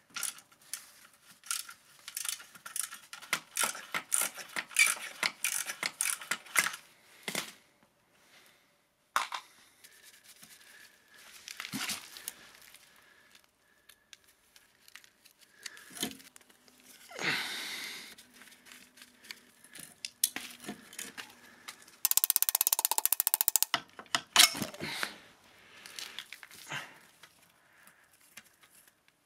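Socket ratchet clicking as it works the bolts on the front sprocket of a rusty 125cc two-stroke motorcycle engine, followed by scattered metal clinks, scrapes and rattles of tools, bolts and the drive chain. The loudest part is a fast run of rattling clicks lasting about a second and a half, a little over twenty seconds in.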